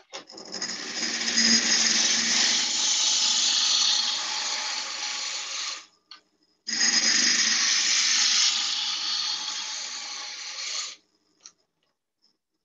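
Roughing gouge cutting a spinning beech blank on a wood lathe: two long passes, the first about six seconds and the second about four, with a short break between. The cuts take off a lacquered outer layer down to bare wood.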